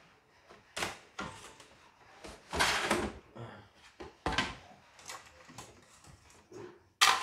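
Knocks and scraping from handling a CNY portable embroidery machine on a shelf: about five separate clatters, the longest and loudest about two and a half seconds in, and a sharp knock near the end.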